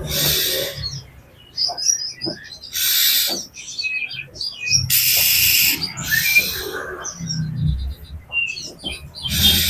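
Oriental magpie-robin (kacer) calling agitatedly: several harsh, hissing rasps, each half a second to a second long, with short high chirping notes in between.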